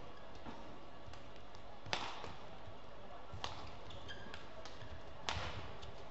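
Badminton rackets striking the shuttlecock in a doubles rally: three sharp hits about a second and a half apart, the last the loudest, with fainter taps between them over a steady hall background.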